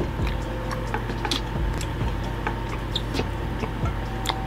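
Eating sounds: irregular small clicks and crackles as fingers pick apart crispy fried duck on a plate and he chews, over a steady low hum.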